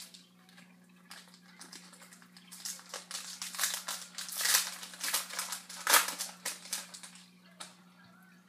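Trading-card pack wrappers crinkling and cards being handled: a run of short crackly rustles, loudest about four and a half and six seconds in.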